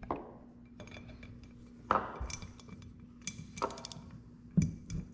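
Metal hand tools clinking and tapping against metal several times, a few separate sharp clinks with a short ring, as a T20 Torx driver and an 8 mm wrench are picked up and set to the clutch weight bolts.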